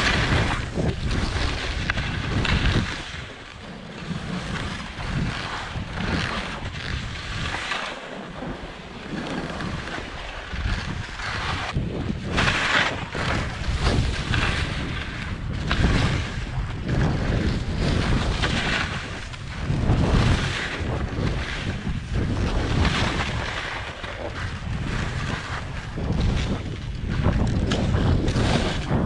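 Wind rushing over the microphone while skis slide and turn through soft, tracked snow, the noise rising and falling in uneven surges with the turns.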